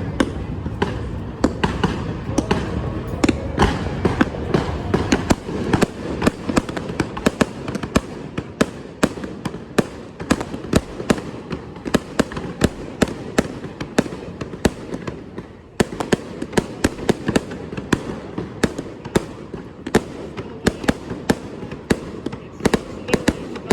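Aerial fireworks display: a rapid string of sharp bangs and crackles, several a second, over a continuous rumble of bursts, with a brief lull about two thirds of the way through.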